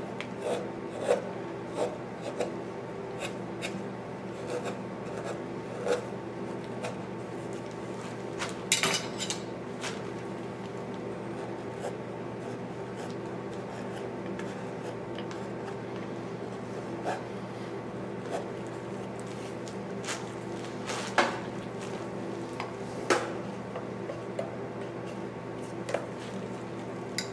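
A hand chisel paring and shaving white cedar on a decoy body, in short scraping cuts, denser early on and sparser later, with a few sharp clicks. A steady low hum runs underneath.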